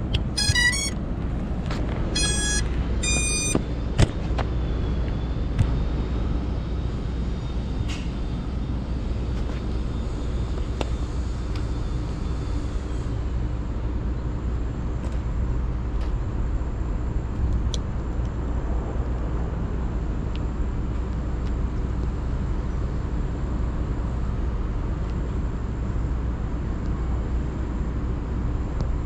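Steady low outdoor rumble, like distant traffic or wind on the microphone, with three short runs of electronic beep tones in the first few seconds.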